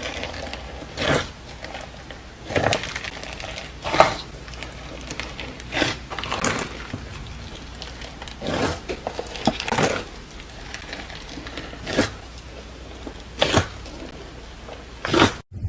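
Slime being squeezed and pressed, giving crackling, popping squelches in separate bursts about one to two seconds apart.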